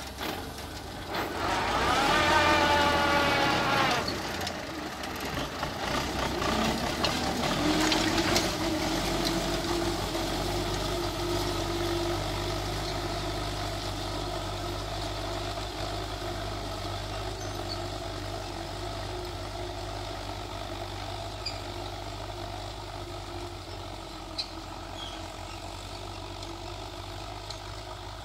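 Belarus tractor's diesel engine working under load while pulling a disc harrow. It is loudest in the first few seconds, with a slightly rising whine. It then runs steadily and fades as the tractor moves away.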